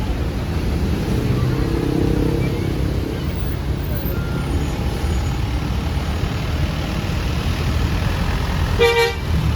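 A large bus's engine running with a steady low rumble, and one short horn blast about nine seconds in.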